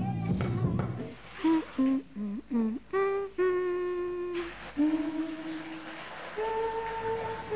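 Loud music with drums breaks off about a second in. A lone voice then hums a slow unaccompanied tune: a few short notes, then longer held ones.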